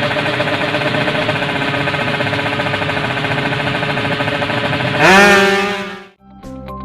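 Drag-racing motorcycle engine idling steadily and unevenly, then revved hard about five seconds in, the pitch rising sharply for about a second before the sound cuts off abruptly. Music starts just before the end.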